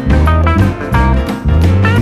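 Background music: guitar-led instrumental with a steady, pulsing bass beat.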